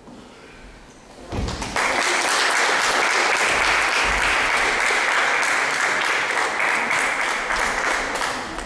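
Audience applauding: clapping begins about a second in, grows fuller half a second later, and then carries on steadily.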